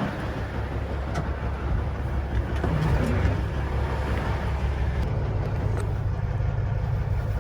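Semi truck's diesel engine running with a steady low drone, its tone shifting slightly about five seconds in.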